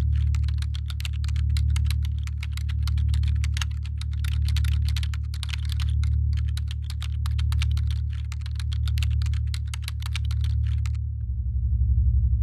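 Rapid keyboard-typing clicks, a sound effect for on-screen text being typed out, over a low droning music bed that swells about every second and a half. The typing stops about 11 seconds in, and the drone turns deeper with a faster pulse.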